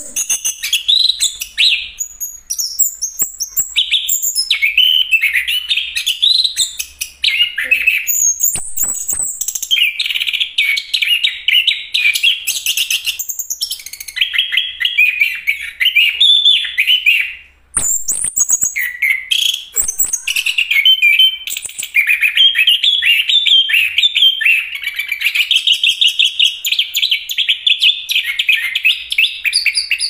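Chestnut-capped thrush (anis kembang) singing a long, nearly unbroken run of rapid, varied phrases mixing high notes with fast chattering, with one brief break a little past halfway.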